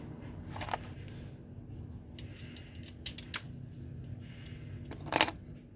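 A few sharp clicks and knocks, the loudest near the end, as small hard parts and tools are handled during an angle grinder repair, over a steady low hum.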